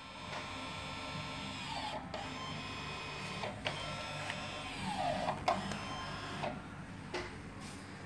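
Volkswagen Golf VII rear electric parking-brake caliper motors whining as they drive the pistons back out to close the calipers at the end of pad-change mode. The whine runs about six seconds, with a couple of short breaks, then stops.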